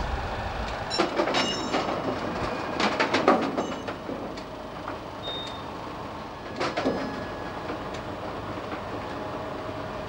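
Slow-moving railway work train of material-handling wagons rolling past: a steady rumble with metallic clanks and knocks from the wagons and couplings, loudest around three seconds in, and a brief high metallic squeal about a second in.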